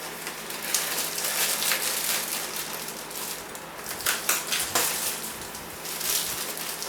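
Crackling, rustling handling noise with a few sharper clicks, from a folding clothes-drying rack being handled.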